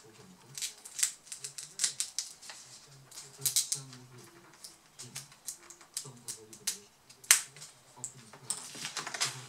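Plastic display bezel of a Dell Inspiron 15 3558 being pried off the screen lid by hand, its clips and edges giving a run of irregular sharp clicks and snaps, loudest about seven seconds in.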